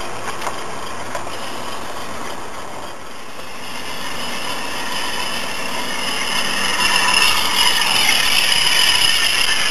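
Model railway diesel Pullman train running along garden track: a steady rattle of wheels and motor, growing louder over the second half.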